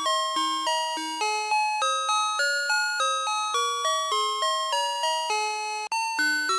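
VTech Alphabert's Sonic Phonix toy playing an electronic tune in bright, chime-like synthesized notes over a lower accompaniment line, about three notes a second, each fading quickly. The music cuts out for an instant near the end, then carries on.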